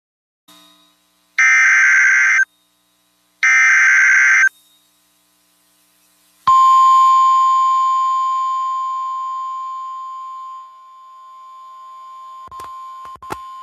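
Emergency alert broadcast: two one-second bursts of warbling data tones (the SAME header), then a single long, steady high alert tone, the NOAA Weather Radio warning alarm. The tone starts loud and slowly fades, with a few sharp clicks near the end.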